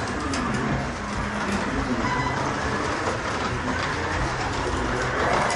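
A 1/24 scale BMW slot car lapping a plastic slot car track, its small electric motor and wheels running steadily along the track.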